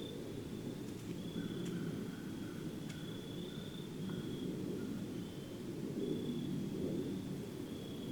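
Outdoor ambience: a steady, high-pitched insect trill, cricket-like, over a low, steady rumble, with a few faint ticks.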